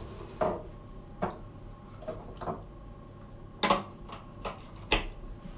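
Light clicks and knocks from things being handled on a kitchen counter, about six at irregular spacing, the loudest two in the second half.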